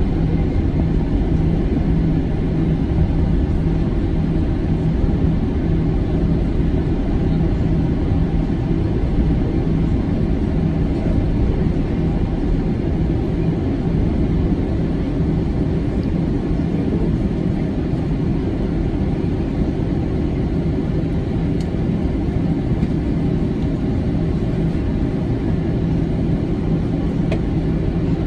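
Cabin noise inside an Airbus A320 taxiing, engines at low thrust: a steady low rumble, with a low steady hum that weakens about halfway through.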